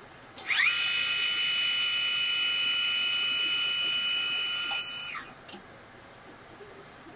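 Small lathe spinning a reel motor's copper commutator: a high whine that rises quickly as it spins up, runs steadily for about four and a half seconds, then cuts off about five seconds in.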